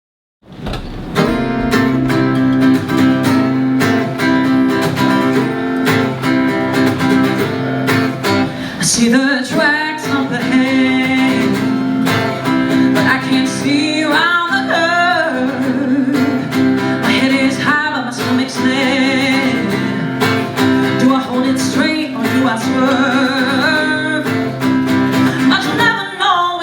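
Live song performance: an instrumental introduction with a plucked, strummed accompaniment starts about a second in, and a singing voice joins from about nine seconds in.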